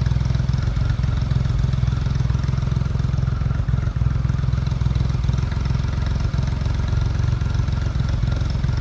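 Diesel multiple-unit trains idling, a steady low engine drone.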